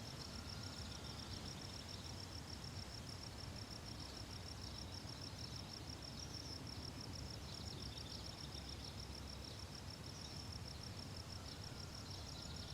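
Faint outdoor ambience dominated by an insect's steady, high-pitched rapid chirring, with a few faint bird calls.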